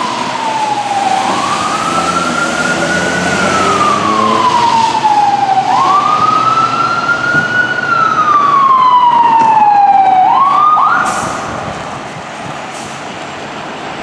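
Fire engine siren winding up quickly and then slowly falling in pitch, three times over. The third wind-up cuts off short about eleven seconds in.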